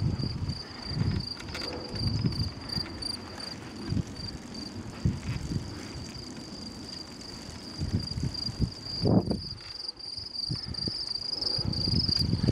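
Crickets chirping steadily in roadside meadows, a high pulsing tone that never stops, over irregular low rumble and thumps of wind and road vibration on the moving bike's microphone, with one stronger thump about nine seconds in.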